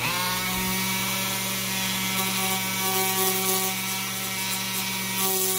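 Dremel rotary tool with a sanding drum spinning up and then running steadily at low speed, a steady motor whine, as the drum lightly sands into foam board.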